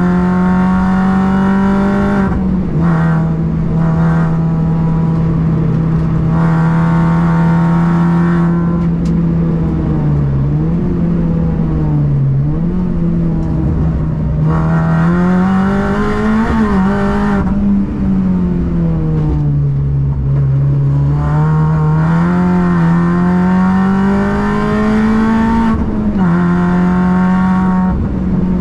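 Car engine running hard under load, its pitch rising and falling with the throttle, with several sudden drops in pitch.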